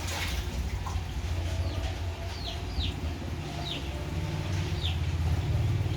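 A bird chirping five or six times, short quick downward chirps, over a steady low rumble from an unseen machine or motor.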